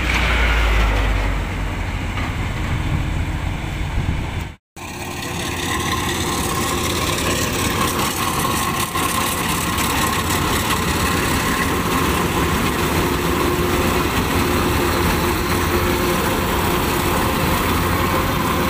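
Kubota combine rice harvester running steadily while harvesting, its diesel engine and machinery making a continuous drone. The sound drops out for a moment about four and a half seconds in.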